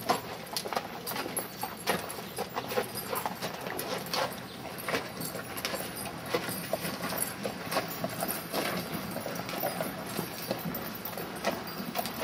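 A saddled horse's hooves clip-clopping at a walk on hard-packed dirt, as irregular knocks.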